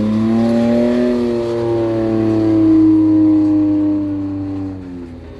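Ford Raptor pickup's engine revving hard under load as it climbs a steep ramp. It rises to a high, held note, then eases off and fades near the end.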